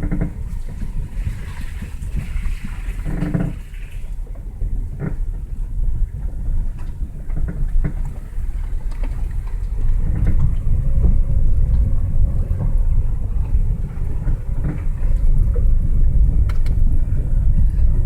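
Lada Vesta SW's front suspension creaking as the car drives over the road, heard from inside the cabin over a steady low road and tyre rumble. A short creak stands out about three seconds in, with scattered brief knocks after it.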